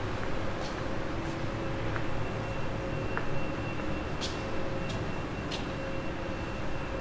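Steady street traffic noise: a continuous hum and hiss with a few faint ticks, and a thin high tone that joins about two seconds in.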